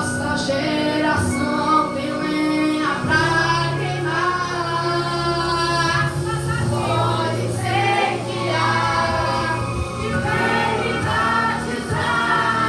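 Church youth choir singing a Portuguese-language gospel song in several voices over steady instrumental accompaniment.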